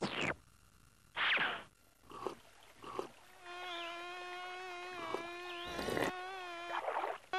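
Cartoon sound effects: two quick falling swishes and a couple of small blips, then a steady buzzing tone held for about three seconds, with a short hiss partway through it.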